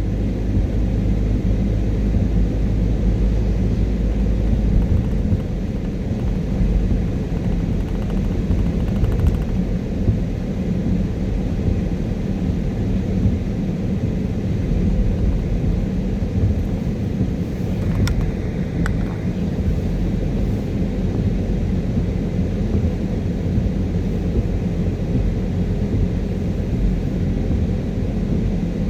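Steady low rumble of a car driving on a wet motorway: tyre and road noise with engine drone.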